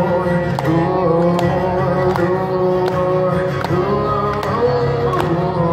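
Acoustic guitar strummed in a steady rhythm under a man's sung vocal through a PA, recorded live from the audience.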